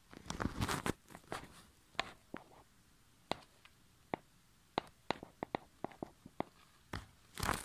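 Scattered sharp clicks and taps at irregular spacing, with a short burst of rustling about half a second in and another near the end.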